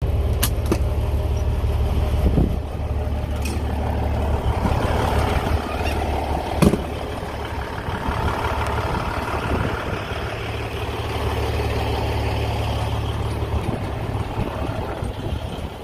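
Peterbilt 379 semi truck's diesel engine idling with a steady low hum, with a few sharp clicks near the start and one louder knock about six and a half seconds in.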